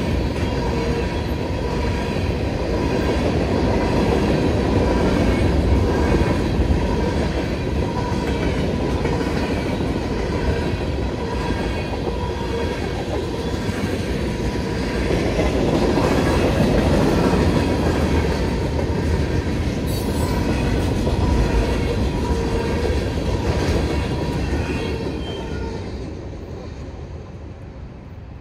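Freight train cars rolling through a grade crossing, wheels clacking over the rails with a steady squeal from the wheels. The sound fades away near the end as the last car passes.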